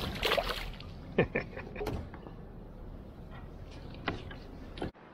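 A released bream splashes back into the water beside a kayak, followed by a few sharp knocks and clatters of gear against the plastic kayak.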